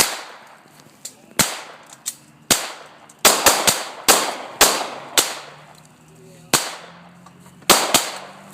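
Glock 22 pistol firing .40 calibre rounds: an irregular string of about eleven loud shots, some coming in quick runs of two or three, each with a short echoing tail.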